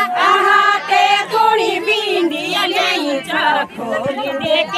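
Several women singing a Garhwali jhumailo folk song together, their voices overlapping and holding drawn-out notes.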